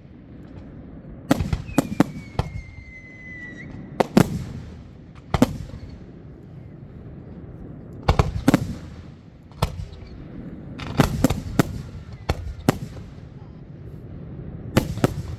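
Fireworks going off in clusters of sharp bangs over a low rumble, with a falling whistle about two seconds in.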